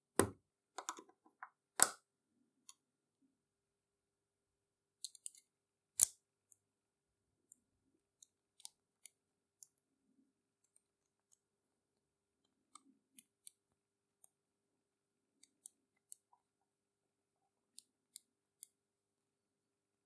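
Clicks of a handmade stainless steel and brass combination lock being handled: a few sharp clicks in the first six seconds as the shackle is worked, then light, scattered ticks about once a second as the brass number wheels are turned.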